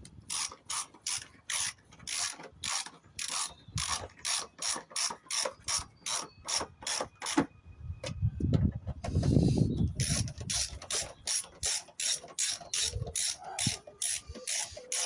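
Ratchet spanner clicking in steady strokes, about three a second, while a replacement wiper motor is bolted in. About eight seconds in it stops for a couple of seconds of handling noise, then carries on.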